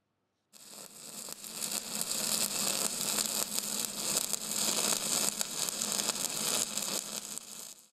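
A steady crackling hiss with a faint low hum under it, fading in about half a second in, growing louder over the next second or so, and cutting off at the very end.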